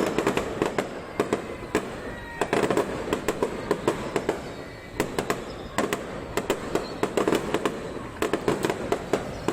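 Aerial fireworks display: many sharp bangs and crackles from bursting shells come in dense volleys, with brief lulls between them.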